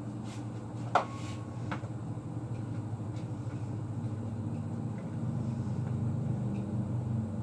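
Steady low mechanical hum, growing a little louder about halfway through. A sharp click with a brief ring comes about a second in, between a couple of lighter knocks, as kitchen items are handled.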